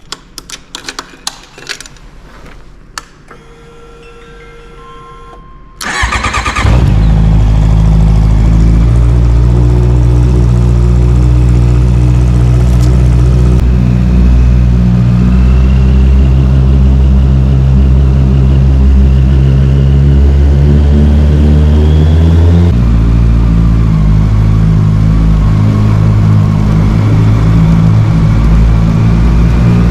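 Honda CBR650R inline-four with an Akrapovič full-system exhaust, its inner silencer removed, starting up. A few faint clicks come first, then about six seconds in the starter cranks and the engine catches and settles into a loud, steady idle. About two-thirds of the way through, the deepest part of the idle note drops away.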